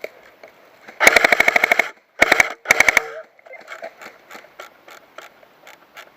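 Airsoft electric gun firing on full auto: a burst of about a second, then two short bursts, followed by fainter scattered clicks.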